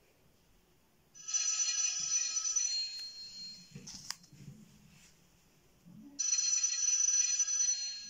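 Telephone bell ringing twice, each ring lasting a little under two seconds, with about three seconds between them. A sharp tap falls between the two rings.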